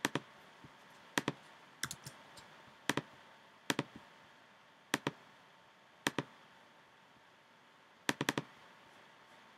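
Sharp clicks of a computer mouse and keyboard, single or in pairs, roughly one a second, with a quick run of three or four about eight seconds in.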